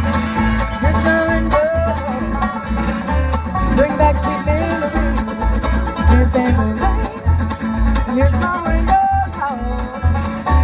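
Live bluegrass string band playing an instrumental break: banjo, acoustic guitar and mandolin over an upright bass plucking a steady pulse.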